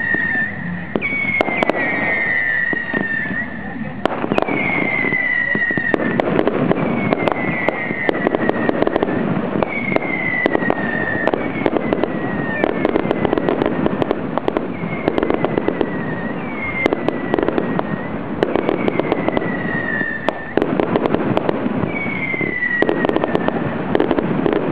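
Fireworks display: a dense, steady crackle of rapid pops and bangs, with a whistling firework's falling whistle every second or two.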